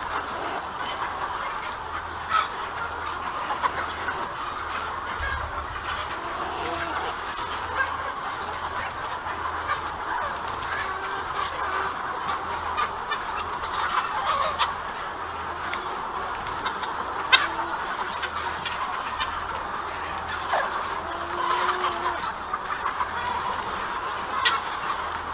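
A large flock of broiler chickens clucking and calling continuously, many birds at once blending into a steady chatter, with scattered short clicks.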